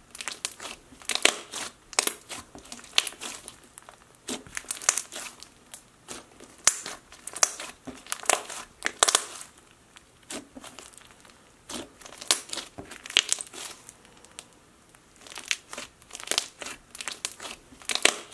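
Thick clay slime with foam beads being pressed and squeezed by hand, giving irregular clusters of wet pops and crackles as trapped air bubbles burst, with short pauses between handfuls.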